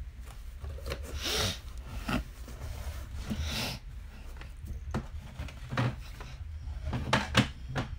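Cardboard box flaps being folded shut, rustling and rubbing twice, followed by a few light knocks of the box being handled, over a steady low hum.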